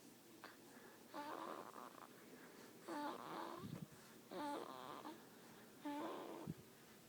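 Snoring: four snores about a second and a half apart, each a short, wavering, whistly tone, with a couple of soft low thumps between them.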